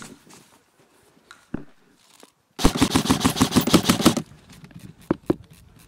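Airsoft electric gun firing one full-auto burst of about a second and a half, a rapid, evenly spaced rattle of shots that starts abruptly nearly three seconds in. A few single clicks before and after it.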